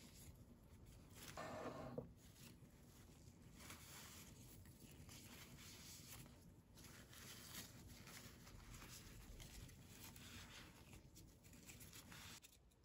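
Faint rustling and rubbing of a paper towel wiped over Calathea leaves by gloved hands, with one louder scuff about a second and a half in.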